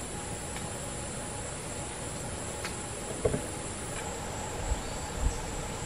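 Steady insect chorus of the rainforest, a continuous high-pitched buzz, with a few short low thumps about three seconds in and near the end.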